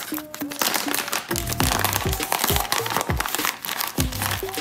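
Crinkling of a resealable plastic zip bag being pulled open, with small plastic bags of parts drawn out of it. Background music with a steady beat plays throughout.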